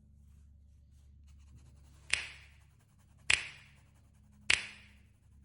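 Three sharp snapping clicks about 1.2 seconds apart, each with a short ringing tail, over a faint low hum.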